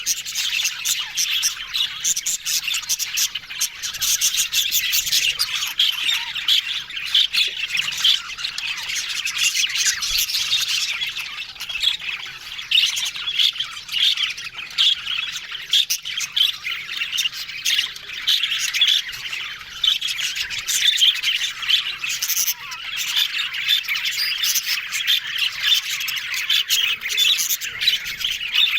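A flock of budgerigars chattering: many overlapping warbles, chirps and squawks at once.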